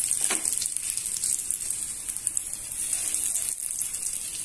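Rava-coated mackerel (bangda) shallow-frying in hot oil in a pan on a medium flame: a steady, even sizzle, with a couple of brief crackles in the first second.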